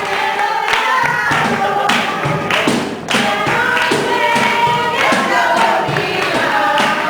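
A choir singing with music, with a brief break about three seconds in.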